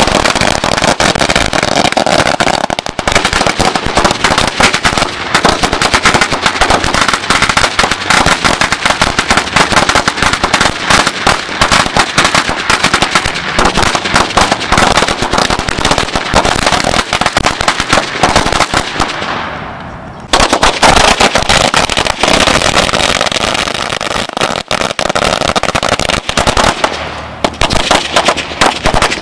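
A firecracker celebration roll going off: a long, rapid, continuous chain of sharp bangs. It dips briefly about twenty seconds in, then runs on.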